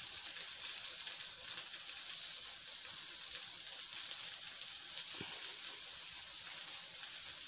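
Pupusas sizzling on a lightly oiled comal griddle, a steady high hiss.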